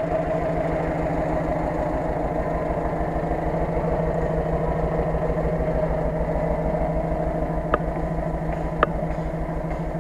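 UAZ-469 engine running steadily at an even pace, with two short sharp clicks about a second apart near the end.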